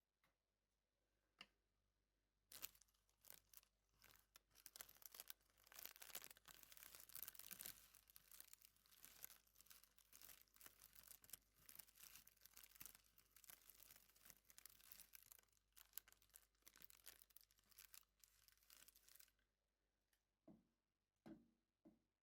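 Faint dry rustling and crackling, an irregular run of small crackles that starts a few seconds in and stops a few seconds before the end.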